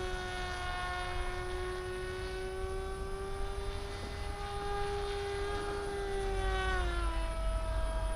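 Brushless electric motor of an FPV flying wing (a 3536/5 motor) driving its propeller in flight: a steady whine with several overtones that drops in pitch near the end as the throttle is eased.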